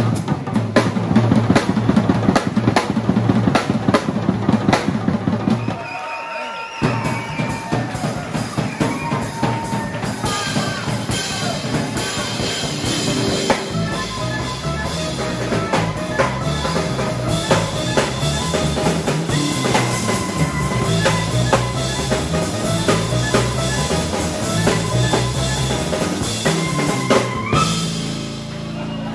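Live jazz band: a drum kit played busily for about six seconds, then, after a brief break, clarinet melody over drums and guitar, with a rising clarinet run near the end.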